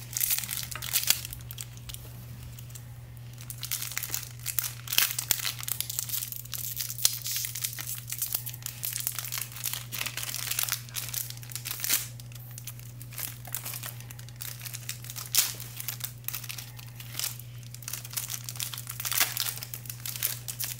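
Foil wrappers of Pokémon booster packs crinkling and tearing as they are handled and ripped open by hand, in irregular crackles that come and go.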